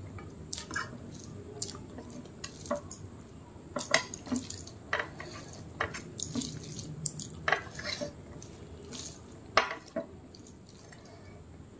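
Wet eating sounds of rice and mutton curry eaten by hand: irregular sharp, sticky mouth clicks and smacks while chewing, loudest about four seconds in and again near the end, with hand-mixed rice squishing softly.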